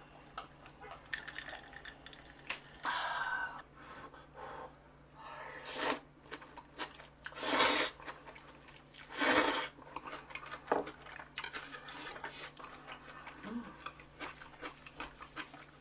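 A person eating hot gopchang hot pot: chewing, small clicks of utensils against the dish, and several short breathy bursts.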